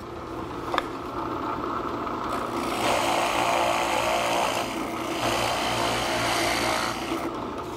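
Grizzly floor-standing drill press running with a steady motor hum, with a click about a second in; from about two and a half seconds in, the twist drill bit cuts down through a wooden board for about five seconds, a louder, rougher cutting noise, before easing off with the motor still running.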